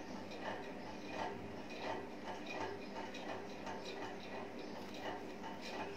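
Tip of a fine-liner drawing pen ticking and scratching on paper in quick short strokes, about two or three ticks a second, over a faint steady hum.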